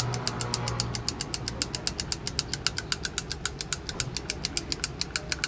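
CRT rejuvenator bombarding the picture tube's green cathode, giving a rapid, even train of sharp clicks, about eight a second, that stops at the very end. This is a test of a tube whose green gun will not light, which the technician takes for a weak or failed picture tube.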